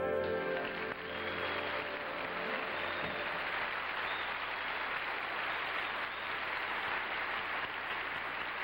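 Audience applauding steadily, as the band's last held chord of the song dies away in the first second.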